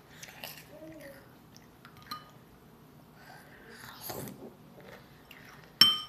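Metal spoon clinking against a cereal bowl: a light clink about two seconds in and a sharp, ringing clink near the end, the loudest sound. Between them are soft sounds of a small child eating from the spoon.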